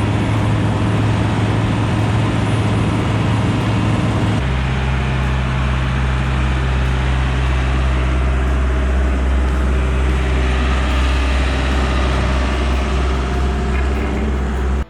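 Heavy diesel engines of road-paving machinery running steadily at a constant speed. The engine note changes abruptly to a lower, deeper hum about four seconds in.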